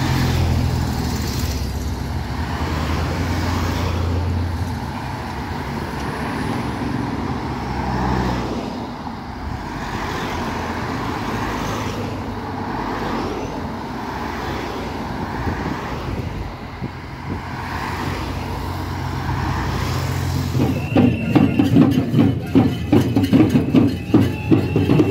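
Team cars and escort motorcycles of a cycling race convoy driving past, a steady low engine hum with tyre noise that shifts as each vehicle goes by. About four seconds from the end it changes to a louder, rapid rhythmic clatter.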